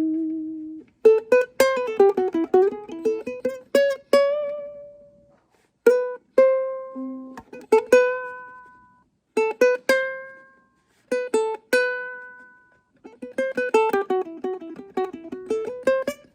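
Background ukulele music: plucked notes and quick strummed runs, with a few single notes left ringing out.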